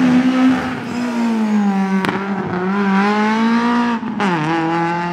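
Rally car engine revving hard on a tarmac sprint stage, its note rising and falling with the throttle. There is a single sharp crack about two seconds in, and a sudden drop in pitch about four seconds in.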